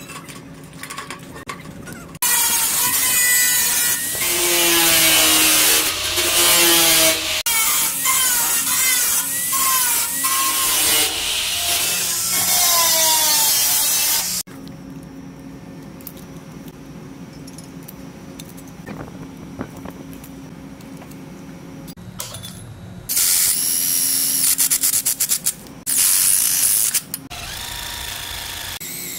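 Angle grinder cutting a flat metal bar: a loud, harsh grinding whose pitch wavers under load, lasting about twelve seconds and preceded by a few clicks of tin snips. Then comes a quieter stretch with a steady low hum, and several short loud bursts of tool noise near the end.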